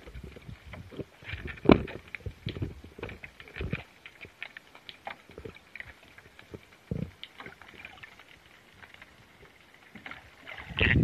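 Muffled underwater sound picked up by a submerged camera: irregular knocks and thumps over a faint wash of water, growing louder and busier near the end.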